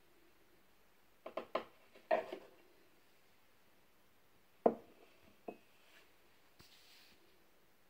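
A few short, sharp knocks and taps: a quick cluster of about four a little over a second in, then a louder single knock a little before the middle and a smaller one just after it.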